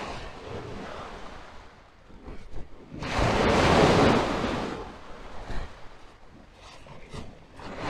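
Small waves breaking and washing on a shingle beach, one larger wave surging in about three seconds in and drawing back over the next two seconds, with some wind on the microphone.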